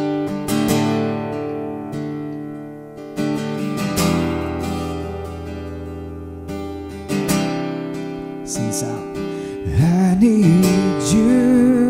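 Acoustic guitar strumming a slow worship-song accompaniment over sustained chords, with a voice singing a line from about ten seconds in.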